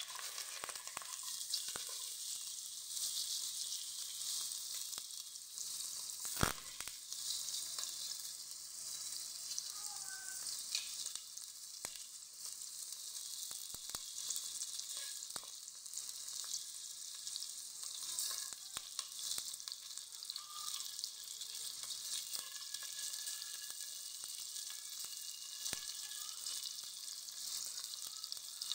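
Hot oil sizzling in a stainless steel pot as diced red onion is cut straight into it: a steady high hiss with scattered sharp clicks, the loudest about six seconds in.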